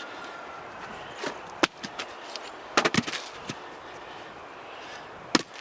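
A few sharp knocks and clacks over a low steady hiss: one about a second in, a quick cluster near three seconds, and a last one near the end.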